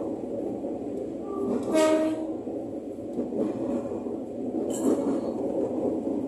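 Ex-Tokyo Metro 05 series electric commuter train running, heard from its cab: a steady running rumble. A brief tooting sound comes about two seconds in and a short sharp clack near five seconds.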